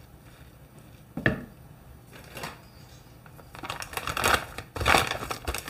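Grated potato and onion pakora mixture being worked by hand in a bowl: a single knock about a second in, then from past the halfway mark a run of quick rough rustling, crunching bursts.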